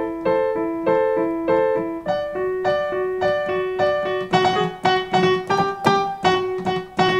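Kurzweil Artis SE stage piano playing a rock piano riff: chords over a steadily repeated low note, about three notes a second, quickening to four or five a second about four seconds in. The player finds the repeated notes on this board less clear than on the Casio.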